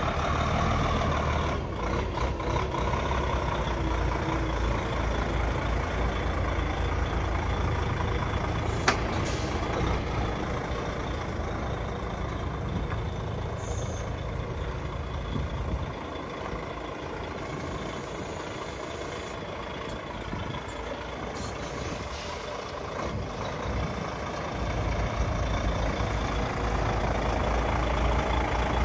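DAF XF 105.460 tractor unit's 12.9-litre six-cylinder diesel idling steadily, quieter for a stretch in the middle. A single sharp click comes about nine seconds in.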